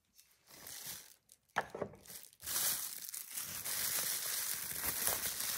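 Plastic bubble wrap being handled and unwrapped by hand, crinkling and rustling. It starts faint and patchy, then becomes a steady, dense crinkle from about halfway.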